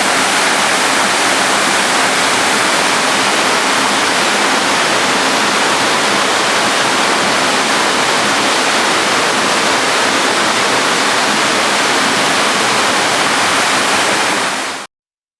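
Waterfall: a loud, steady rush of falling water that fades out quickly and cuts off near the end.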